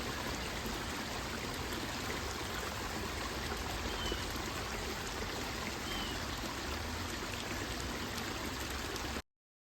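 Creek water running over rocks, a steady rushing; it cuts off suddenly about nine seconds in.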